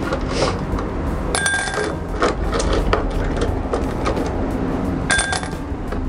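Glass marbles clinking and knocking in a clear glass tumbler, with scattered sharp clicks and two short glassy rings, one about a second and a half in and one near the end.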